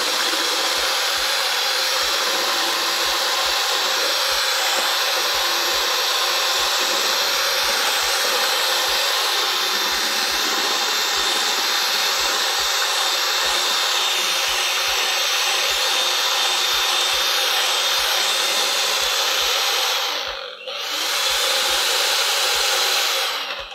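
Electric hand mixer running steadily, its beaters whisking eggs and vanilla in a plastic bowl. It cuts out briefly about twenty seconds in, starts again, and stops near the end.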